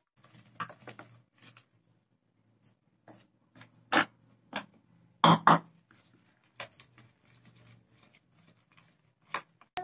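Plastic spoon scraping and tapping in a plastic bowl while flour is stirred into a wet mixture for dough. A few louder knocks come about four and five seconds in, as a second bowl of flour is tipped in.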